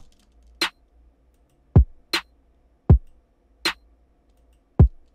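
Programmed trap drum loop playing back from the step sequencer: a dry electronic kick drum thumps three times with a quick downward pitch drop, alternating with sharp snare hits about every second and a half.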